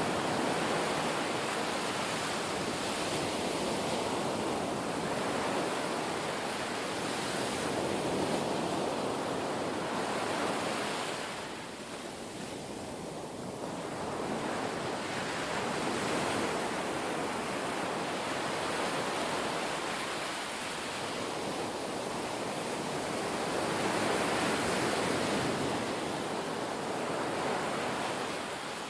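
Ocean surf: waves washing in and drawing back in slow swells, with a lull of a couple of seconds a little before the middle.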